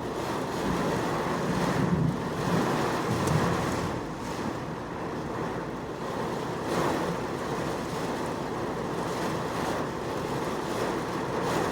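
Heavy microburst downpour with gusting wind, a steady rushing hiss of rain that swells and eases a little.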